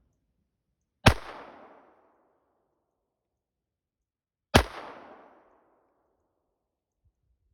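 Two shots from a Walther PP .32 pistol, about three and a half seconds apart, each sharp crack followed by a short echoing tail.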